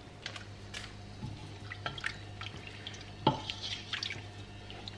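Onion soup liquid heating in a stainless steel pot, giving scattered small drip-like pops, with one sharper click about three seconds in over a faint steady low hum.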